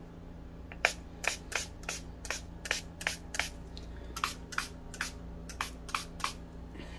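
Small plastic finger-pump spray bottle misting water: a quick run of about twenty short hissing squirts, roughly three a second.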